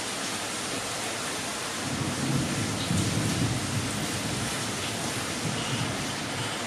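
Steady rain hiss with a low thunder rumble that swells about two seconds in and eases off after about four seconds.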